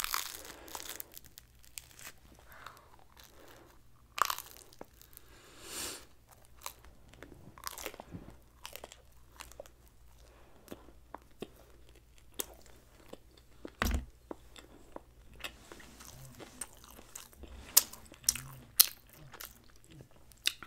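A person biting and chewing pork kebab meat close to the microphone, with many small wet mouth clicks and crunches. The louder bites come about fourteen seconds in and twice near the end.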